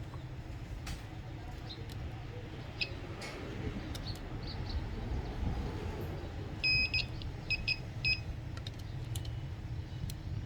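Short high-pitched electronic beeps, one longer beep about two-thirds of the way in followed quickly by three short ones, with scattered small clicks over a low steady background hum.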